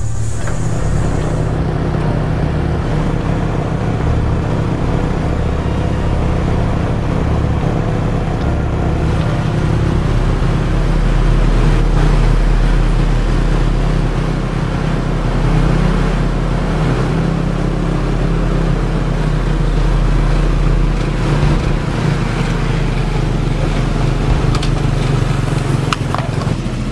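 Small motorcycle and motor scooter engines running steadily as the bikes ride along together.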